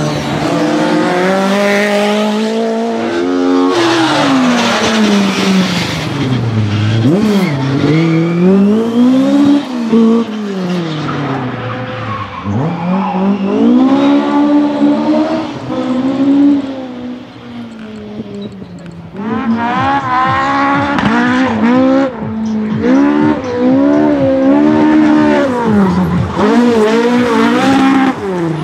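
Historic rally car engines driven hard through tight corners. The revs climb and drop again and again with gear changes and lifts, and tyres squeal in places. The engines ease off briefly past the midpoint, then rev hard again.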